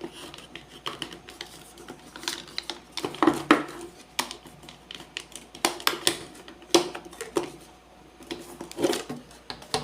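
Irregular hard plastic clicks and knocks as an industrial plug is pushed and twisted against its wall socket, not yet lined up with the socket's locking grooves.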